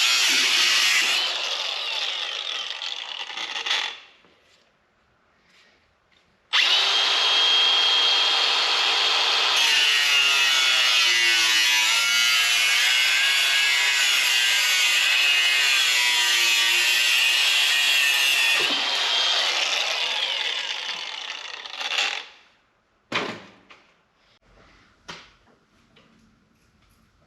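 Power tool cutting sheet steel in two runs: a short one that stops about four seconds in, and a long steady one from about six seconds in to about twenty-two seconds. A few sharp knocks follow near the end.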